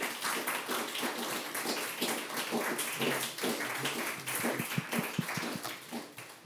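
Audience applauding, a steady patter of many hands clapping that thins and dies away near the end.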